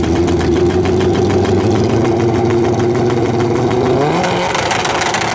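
Drag-racing motorcycle engines running steadily at the starting line. About four seconds in, the engine note rises as they are revved up.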